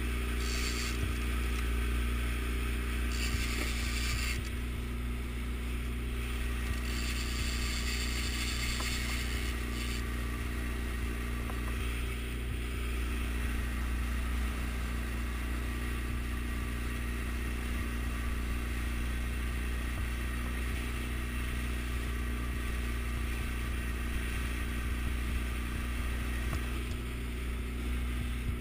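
Yamaha outboard motor running steadily at trolling speed, a constant low drone, with the wake's water rushing and hissing close by; the hiss swells and drops a few times in the first ten seconds.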